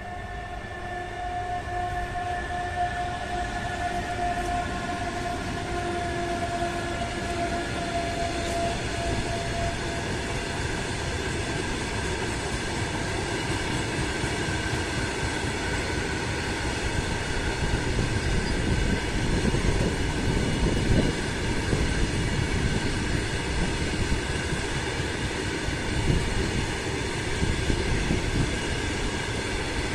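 Long freight train of open wagons rolling past, its wheels rumbling and knocking on the rails and growing louder as the wagons go by. A steady whine heard at the start fades out about ten seconds in.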